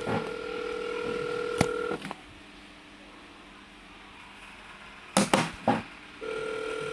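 Telephone ringback tone heard on the caller's end of the line: a steady ring for about two seconds, a pause of about four seconds with a few short clicks, then the next ring starting near the end. The call is ringing through and has not yet been answered.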